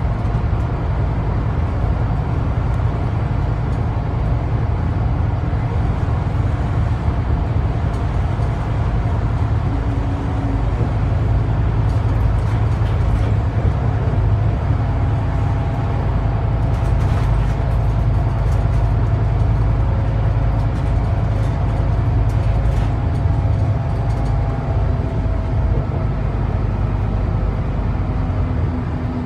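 Scania K320UB bus's 9.3-litre five-cylinder DC9 diesel running steadily at cruising speed, heard from inside the passenger cabin, with tyre and road noise.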